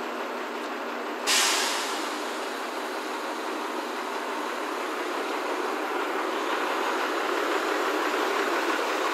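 Truck-mounted crane working as it lifts a boat, with a steady mechanical noise. About a second in there is a sudden sharp hiss that fades within half a second.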